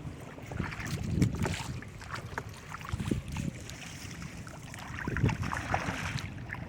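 Water splashing and sloshing in irregular bursts, with wind buffeting the microphone as a low rumble.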